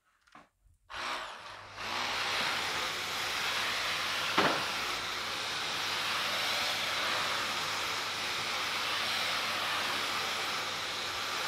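Vacuum cleaner switched on about a second in, spinning up and then running steadily, with a single sharp knock a few seconds later.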